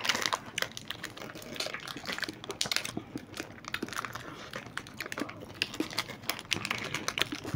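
Plastic wrapper of a chocobar ice cream bar crinkling and rustling as it is handled and peeled back, in irregular runs of small crackles.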